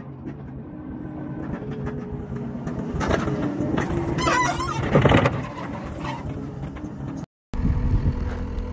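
Compact track loader (tracked skid steer) running and driving up over a dirt pile with a loaded bucket, its engine growing louder as it comes closer. Metallic squeaks and clatter from the machine are loudest about halfway through.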